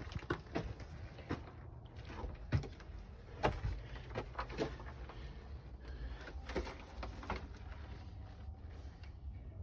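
Footsteps on loose rock and gravel: irregular crunching and scraping steps over a steady low rumble.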